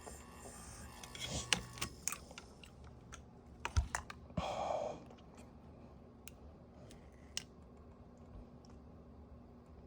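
Small exhaust fan motor running with a steady hum and whine, a noise the owner thought he had fixed, that cuts off about two seconds in. Then scattered clicks and knocks of the fan's parts being handled, with a loud knock and a short scraping rustle a little before halfway.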